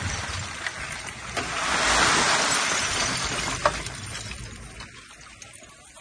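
Dump truck tipper at work: rattling, clanking metal as the tipped bed comes down, with a truck engine underneath. The noise swells about two seconds in, gives a sharp clank a little after three and a half seconds, then fades away.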